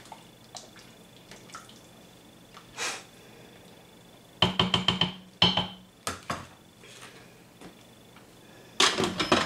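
Metal clinks and knocks at an Instant Pot's stainless steel pot: a quick run of sharp clicks about four and a half seconds in, a few more single knocks soon after, then a dense cluster of clicks near the end as the pressure-cooker lid is set on and turned closed.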